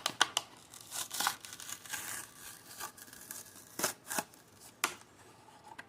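Cardboard doll box and its packaging being opened and handled as a small doll is taken out: scattered short rustles, clicks and tearing sounds.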